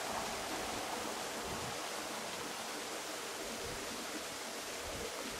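E3 series Tsubasa shinkansen train approaching on the track: a steady rushing running noise with no distinct clicks or horn.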